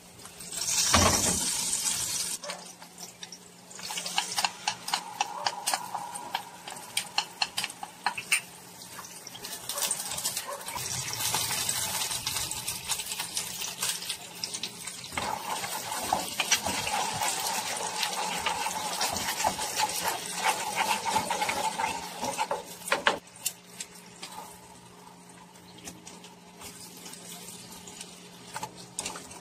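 Pork steaks sizzling and crackling in a hot frying pan, with a loud flare of sizzle about a second in and liquid hissing and spitting in the hot fat. The sizzle dies down a few seconds before the end.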